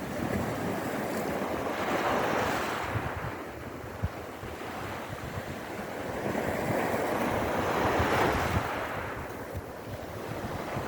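Sea waves surging and breaking on the shore, swelling up twice, with wind buffeting the microphone underneath.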